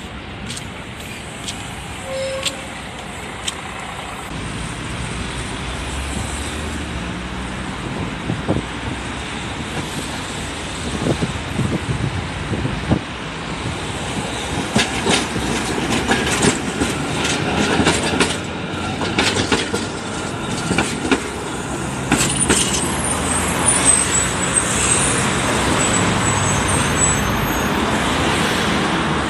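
Trams running on street track amid road traffic. An articulated tram clatters over rail joints and points, with a string of sharp knocks and clicks in the second half. A faint high squeal comes near the end as it draws up at a stop.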